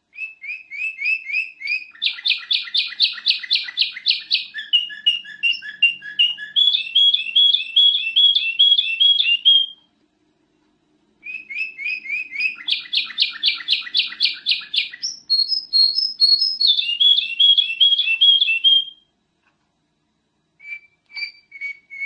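Kutilang emas (black-crested bulbul) singing: fast runs of repeated clear whistled notes in two long bouts, with a pause of about a second and a half near the middle and a few short notes near the end.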